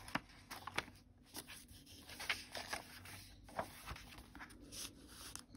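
Paper rustling and sliding as the pages of a handmade junk journal are handled and turned, with several brief sharp flicks of paper.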